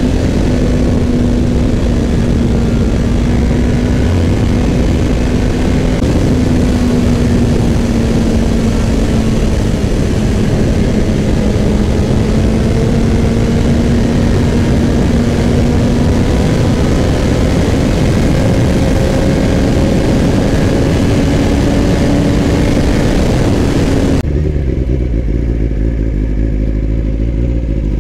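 Kawasaki Ninja sport bike engine running at a steady cruising speed, with wind rushing over the microphone. The engine note sags slightly and then climbs gradually. About 24 seconds in, the wind noise cuts off abruptly, leaving a lower, steady engine sound.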